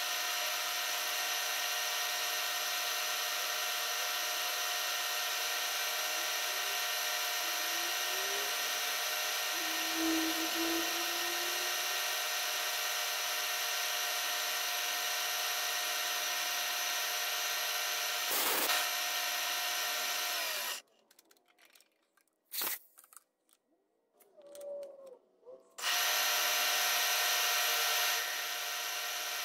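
Vertical milling machine running steadily while an end mill cuts a small metal star, with a sharp click about two-thirds in. The sound cuts off abruptly for about five seconds near the end, then resumes.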